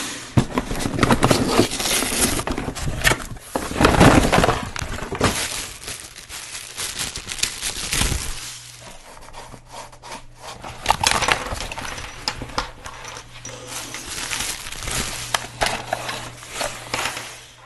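Cardboard and plastic packaging being handled: crinkling plastic bags, rustling and tearing cardboard, with irregular clicks and knocks as boxes and parts are set down on a wooden table.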